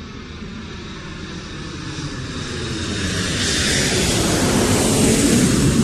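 Twin-engine jet airliner flying low overhead. Its engine noise swells steadily louder as it comes over, with a rushing hiss building in the second half and the loudest point near the end.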